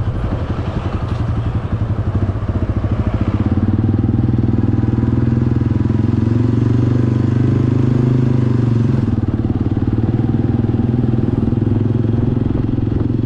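Motorcycle engine running steadily while riding, a low drone with rapid firing pulses; it gets louder about three and a half seconds in.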